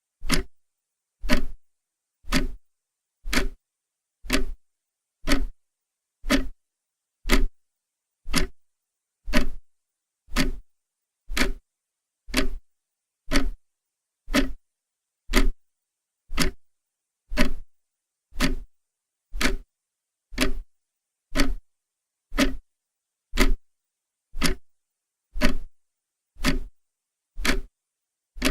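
Clock ticking steadily, one sharp tick about every second, with silence between the ticks.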